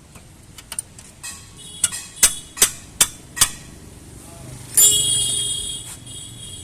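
Hammer blows on metal during shock absorber repair: five sharp strikes in quick succession, followed about a second later by a longer metallic ringing sound that fades over about a second.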